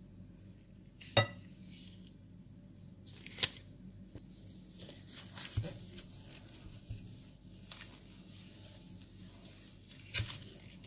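Spatula stirring a runny batter in a glass bowl: soft scraping and sloshing with a few sharp clinks of the utensil against the glass, the loudest about a second in and again at about three and a half seconds.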